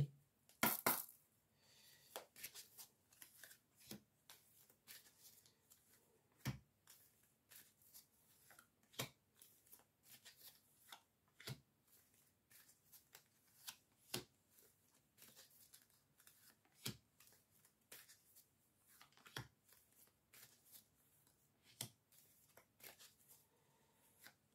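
Lenormand oracle cards being shuffled by hand: faint rapid card flicks and riffles, with a sharper snap of the deck about every two and a half seconds.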